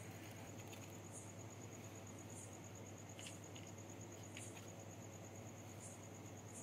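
Crickets trilling at night: a steady high, rapidly pulsing note, with a second insect chirping about once a second, over a low steady hum.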